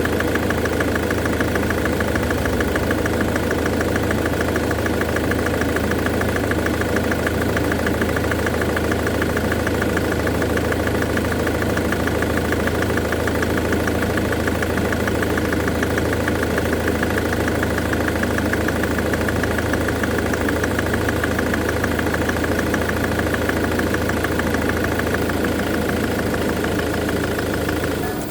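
Jaguar X-Type engine idling steadily with a fast, even ticking. This is the engine being run over a heavy knocking traced to the number 4 fuel injector.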